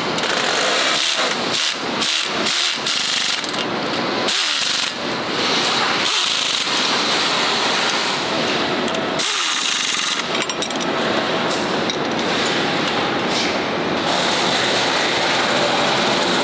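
Pneumatic wrench running in short bursts as it drives the flange bolts, over steady assembly-line noise.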